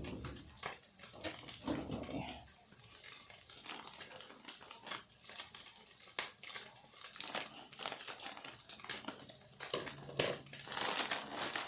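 Plastic freezer bag of frozen peas crinkling and rustling as it is handled and opened, in irregular crackly bursts.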